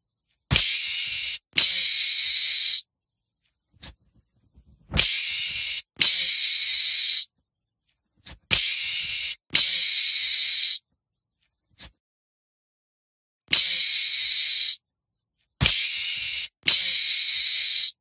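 Meerkat giving harsh hissing calls, each about a second long, mostly in close pairs separated by gaps of a couple of seconds. Each hiss starts and stops abruptly.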